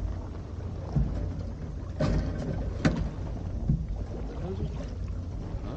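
Steady low rumble of wind and water on a small sailboat, with two sharp knocks about two and three seconds in.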